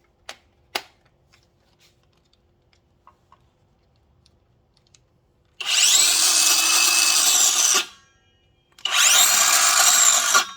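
Battery-powered Stellen saw, driven through its Uni-Grip battery handle, run twice for about two seconds each time, its motor spinning up with a rising whine and then stopping; it runs normally. Two sharp clicks come about a second before, as the battery is snapped on.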